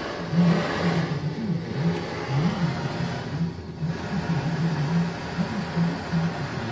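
Hand-held gas torch, fed by hose from a small gas canister, burning with a blue flame: a steady hiss over a low rumble that wavers, with the hiss thinning briefly twice.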